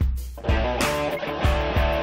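Background music led by strummed guitar over a steady beat, coming back in after a brief drop at the very start.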